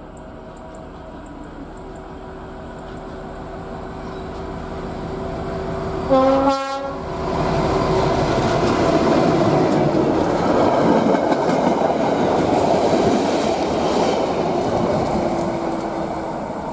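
ČSD class T435 diesel locomotive hauling passenger coaches approaches with its engine running, growing louder, and gives one short horn blast about six seconds in. It then passes close by, engine and wheels on the rails loud, and fades as the train moves away.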